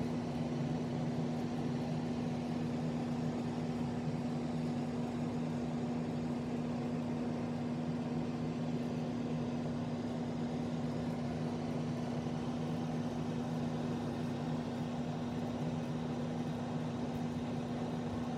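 Steady mechanical hum with one strong constant tone, unchanging throughout, like a motor or appliance running.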